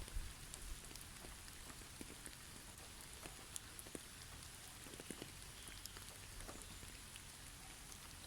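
Faint, irregular pattering of falling drops, scattered light ticks over a soft steady hiss, with a low thump at the very start.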